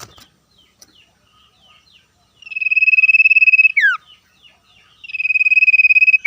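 Common iora (cipoh) singing a rapid trill held on one pitch for over a second, which ends in a falling whistle. It sings this twice, with faint chirps of other birds in between.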